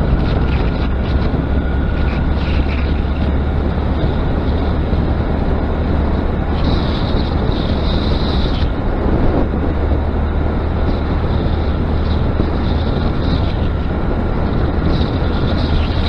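New Honda Grom's single-cylinder engine running steadily under way, with wind buffeting the microphone; a higher hiss rises over it twice, about seven seconds in and near the end.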